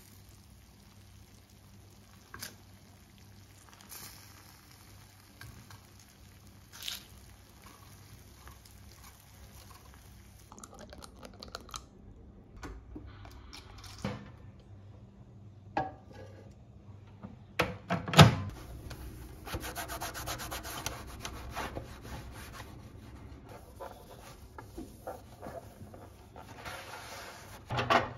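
Quiet kitchen handling sounds: a few soft clicks of chopsticks against a ceramic baking dish, a sharp knock about two-thirds of the way through, then a long stretch of steady rushing, rubbing noise.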